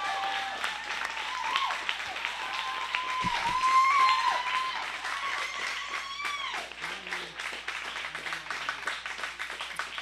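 Audience applauding, with whoops and cheers over the clapping; the applause peaks about four seconds in, then thins and dies down.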